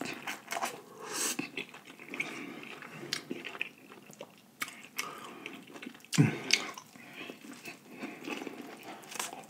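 Chewing and biting into sauce-coated corn on the cob: scattered short crunches and mouth clicks, with a louder one about six seconds in.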